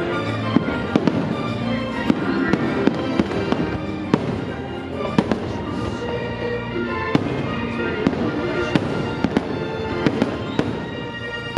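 Aerial fireworks shells bursting in a rapid, irregular series of sharp bangs, several a second at times, over the fireworks show's music playing from the park's speakers.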